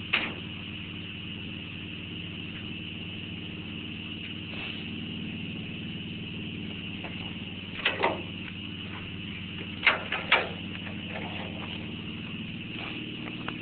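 John Deere B two-cylinder tractor engine running steadily, with a few sharp knocks or clicks at the start, about 8 seconds in and twice around 10 seconds in.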